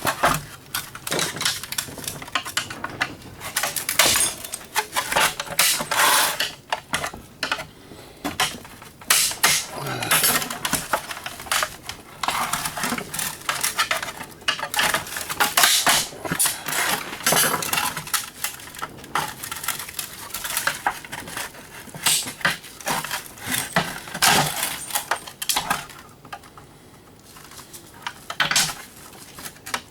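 Irregular clinks, clatters and knocks of tools and small metal parts as an old Rival can opener is taken apart, growing quieter near the end.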